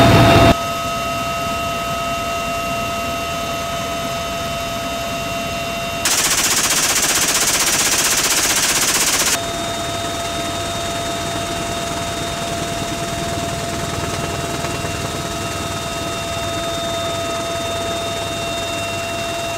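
Helicopter cabin noise with a steady turbine and gearbox whine. About six seconds in, a machine gun fires one continuous burst of about three seconds, louder than the cabin noise.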